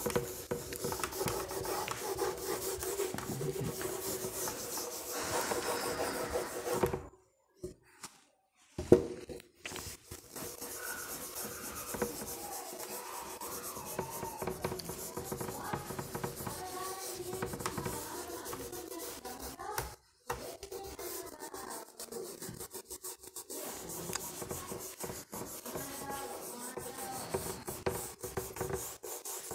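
Whiteboard duster rubbing back and forth over a whiteboard, wiping off marker writing: a steady scrubbing that stops for a moment about seven seconds in and again briefly around twenty seconds.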